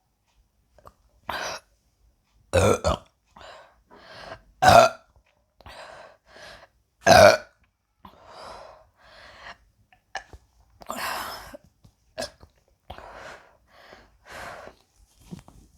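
A woman burping again and again from gas brought up by fizzy Sprite: a rapid string of separate short burps of varying strength, the loudest about three, five and seven seconds in.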